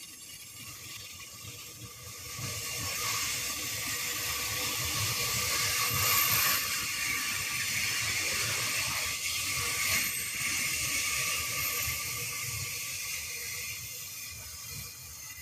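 Loaded coal hopper wagons of a long freight train rolling past on the rails, the wheels running and clacking over the track. It grows louder as the wagons pass close, with a couple of sharp clacks, and dies away as the last wagon draws off down the line.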